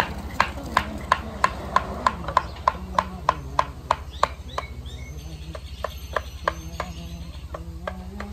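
Regular sharp knocks, about three a second, strong for the first half and fainter and more irregular later. A low voice hums or talks faintly beneath them.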